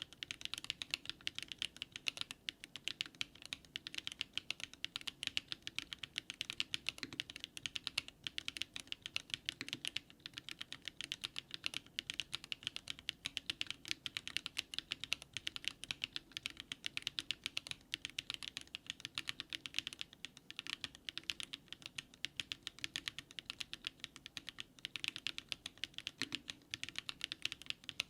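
DARING RUN DR-70F mechanical keyboard fitted with HMX Catmint switches being typed on continuously, a fast, dense run of key clicks.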